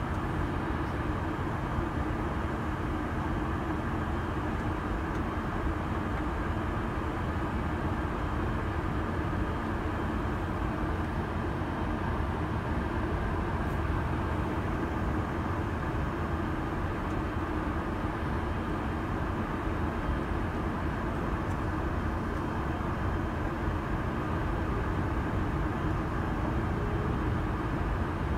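Steady low rumble and hum inside the cabin of an Airbus A380 with Engine Alliance GP7200 engines, taxiing on the ground at low power, heard from a window seat on the upper deck.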